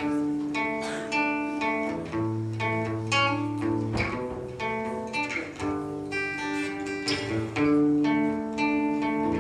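Acoustic guitar playing the instrumental opening of an English folk song: plucked notes ringing over held bass notes, starting suddenly.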